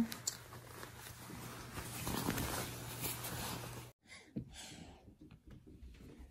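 Close rustling of a child's puffy jacket as it is pulled on, over a low steady hum. It cuts off suddenly about four seconds in, and only faint scattered ticks follow.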